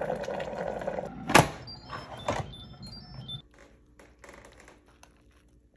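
Stainless steel bowl set down on a metal trivet inside the Instant Pot's steel inner pot: a sharp clank about a second in and a second knock a second later, each with a brief metallic ring.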